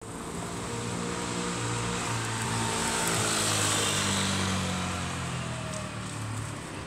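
A motor scooter passing close by. Its engine note swells to a peak about halfway through and then fades as it rides away.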